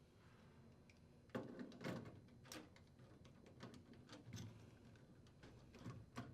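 A few faint, scattered clicks and light knocks of hand work inside a furnace cabinet, as screws are rethreaded to secure the drain trap's mounting bracket, with near silence between them.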